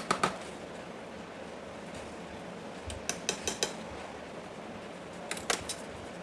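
Small sharp clicks and taps of a Beoplay P6 speaker's thin aluminium cover being handled and aligned on its frame, in a short cluster about three seconds in and another near the end.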